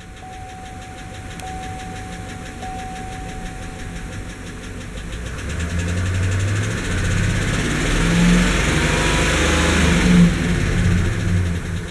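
GM 5.3-litre V8 running with a fast, steady lifter tick that won't go away; the engine speeds up about halfway through and eases off near the end. The owner blames a lifter, with the oil pickup O-ring a suspected cause.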